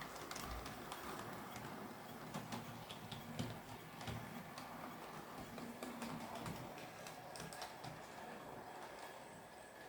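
Hornby OO gauge Battle of Britain class model steam locomotive running along the track, faint, with scattered small clicks from the wheels over the rails.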